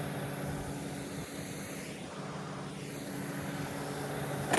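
A motor vehicle's engine running steadily at idle, a low even hum.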